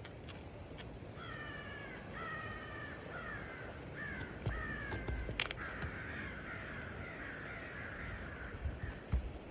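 A crow cawing, about five harsh calls in a row followed by a longer, rougher stretch of calling. A few sharp taps sound alongside, the loudest about halfway through.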